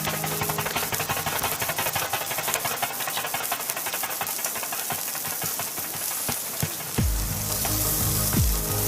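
Lamb chops sizzling and crackling on a grill over a wood fire, under background music. A deep electronic beat comes into the music about seven seconds in.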